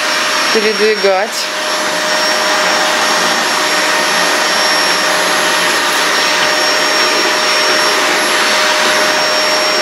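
Vacuum cleaner running steadily, a constant whine over its noise.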